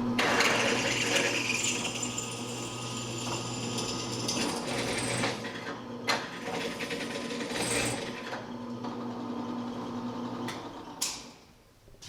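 Drill press running with a 9/32-inch twist drill cutting into a stubborn thread-insert hole, drilling it out: a steady motor hum under a rough cutting noise. The drill winds down about ten and a half seconds in, followed by a sharp click.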